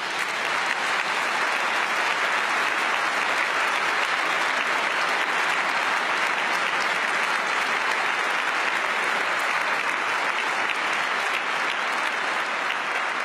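Large audience applauding in a steady, sustained round of clapping that eases slightly near the end.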